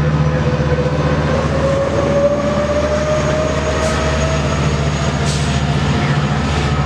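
A Metrolink commuter train passing at speed, with its diesel locomotive pushing at the rear. A steady low engine drone runs under a whine that rises slowly in pitch, with the rush of the cars going by.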